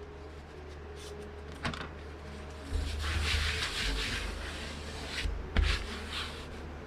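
A brush sweeping loose glass shards off a cracked tablet screen: a rubbing hiss about three seconds in that lasts around a second and a half, with a few light knocks, the loudest about two seconds later.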